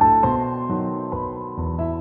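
Background music: a soft piano piece, single notes struck one after another over changing low notes.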